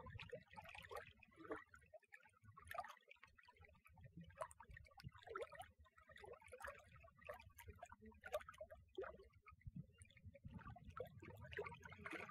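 Faint lapping of small waves at the lake's edge: irregular little gurgles and splashes over a low rumble.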